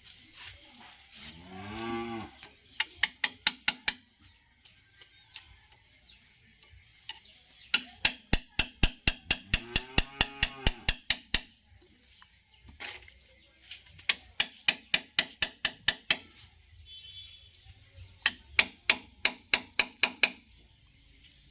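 Hammer blows on a steel punch held against the PTO shaft seal in a John Deere tractor's rear housing: four runs of quick metallic taps, about five a second, with pauses between. A low drawn-out lowing call sounds in the background about two seconds in and again around ten seconds.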